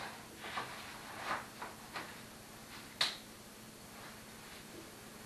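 Stroller frame and canopy being handled: plastic parts clicking and fabric rustling, with a few light clicks in the first two seconds and one sharp click about three seconds in.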